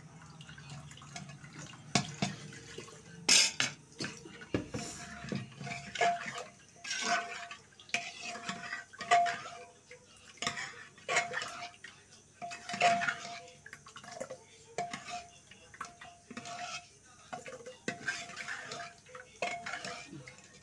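Ladles stirring thick chana dal in a metal pressure cooker pot, knocking and scraping against the pot about once a second, each stroke with a light metallic ring.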